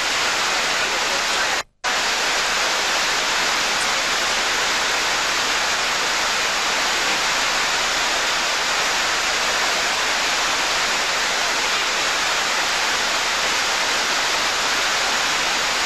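Water cascading down a stepped weir, a steady rushing of white water that cuts out for a moment about two seconds in.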